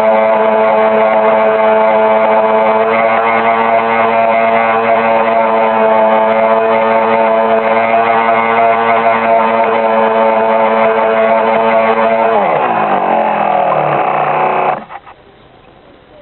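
Riva motorboat's motor running at a steady speed, then slowing with a falling pitch about twelve seconds in and cutting off abruptly near the end.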